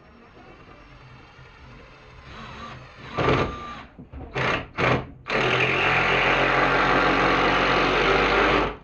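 Cordless impact driver, triggered in two short bursts and then run steadily for about three and a half seconds driving a long screw into the wood, stopping suddenly.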